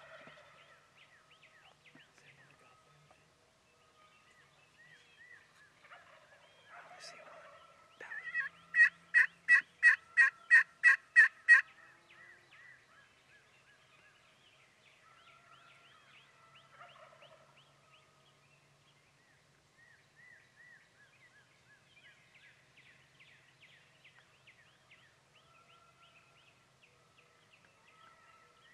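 A loud series of about ten turkey calls, evenly spaced at about three a second, starting about eight seconds in and lasting some three seconds. Small songbirds chirp faintly throughout.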